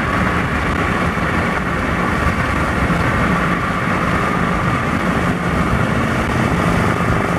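Steady road and engine noise of a car cruising at highway speed, heard from inside the cabin: an even rush over a low, unchanging drone.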